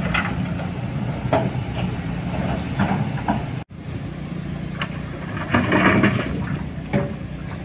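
Construction-site machinery: heavy diesel equipment such as an excavator and dump trucks running steadily, with intermittent knocks and clatter. The sound cuts out for an instant just past halfway.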